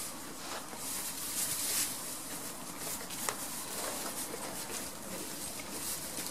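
Rustling and scuffling of straw and hay as goats crowd and nose at the camera, with a single sharp click about three seconds in.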